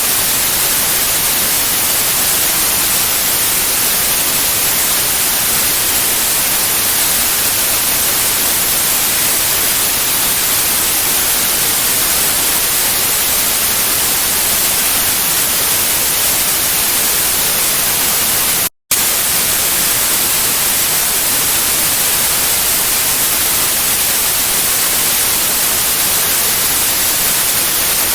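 Steady, loud hiss of white noise, strongest in the highs, with no tones or rhythm. It cuts out completely for a split second about two-thirds of the way through, then resumes unchanged.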